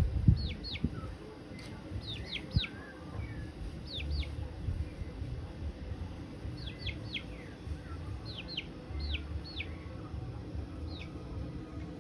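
A bird chirping: short, quick downward-sweeping chirps, mostly in pairs or threes, repeated every couple of seconds. A low rumble runs underneath.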